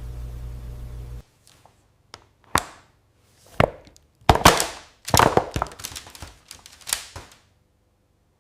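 A steady machine hum cuts off about a second in. Then comes an uneven run of sharp taps and knocks, hard objects striking, loudest around four to five seconds in, stopping about a second before the end.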